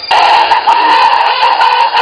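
Alarm clock going off: a loud, steady electronic alarm tone that starts abruptly just after the beginning.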